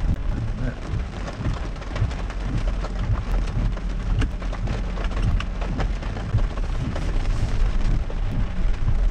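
Land Rover crawling slowly over rough, wet off-road ground: a steady low rumble from the vehicle rocking over the bumps, with rain and scattered sharp taps and knocks throughout.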